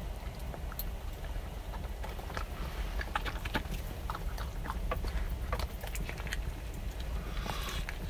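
A puppy eating from a metal bowl: irregular chewing and small clicks against the bowl, over a steady low rumble.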